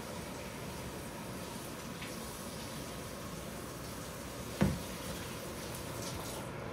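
Pot of curry duck boiling on the stove, a steady bubbling hiss, with one sharp knock about four and a half seconds in.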